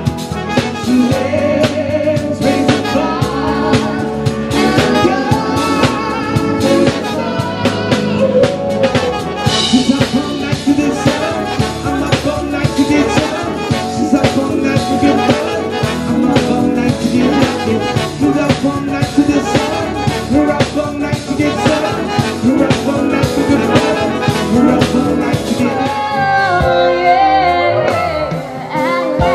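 Live band playing: female singing over trumpet and trombone, with drums, bass, guitar and keyboards keeping a steady beat. Near the end the drums stop and held notes ring on.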